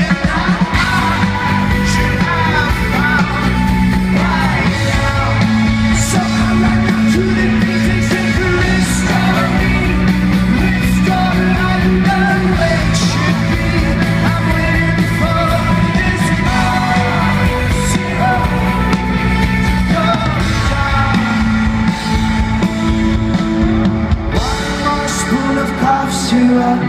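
Live rock band playing loudly, a lead singer's voice carried over held bass notes.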